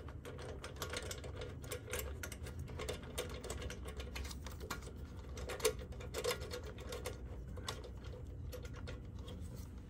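Faint, rapid clicking of a hand ratchet in short runs, with a few louder clicks, as an oil tank mounting bolt is run in.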